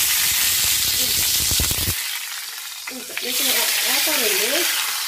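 Water on a wet banana leaf sizzling and hissing into steam on a hot iron pan. The sizzle is loudest for the first two seconds, then goes on as a quieter hiss.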